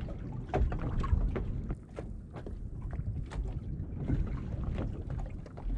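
Wind buffeting the microphone on a small boat at sea: a steady low rumble, with scattered light clicks and knocks.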